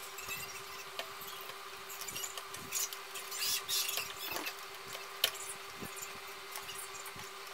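Small plastic clicks and scratchy rustling of hands fitting the tiny front-panel LED and power-switch connector plugs onto the motherboard's header pins, with one sharper click about five seconds in, over a steady hum.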